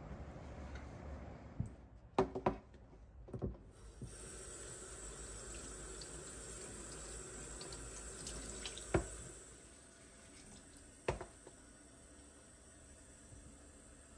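Kitchen faucet running a steady stream of water into the sink while small potted houseplants are watered under it, starting about four seconds in. A few sharp knocks stand out, the loudest a couple of seconds in and about nine seconds in.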